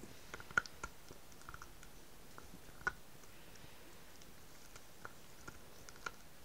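Small dog gnawing a very hard, almost plastic-like rice bone chew: irregular sharp clicks of teeth on the chew, the loudest about half a second in and near three seconds, with a few more near the end.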